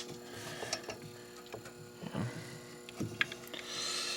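Quiet handling sounds of battery cables being fitted in a fire alarm control panel: a few light clicks and knocks with soft rustling. A steady faint hum lies underneath.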